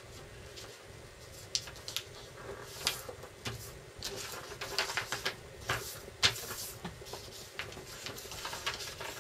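A sheet of paper being handled, folded and creased, with irregular crinkles and sharp crackles. The paper is being worked back and forth along one crease to thin it so that a strip can be separated without scissors.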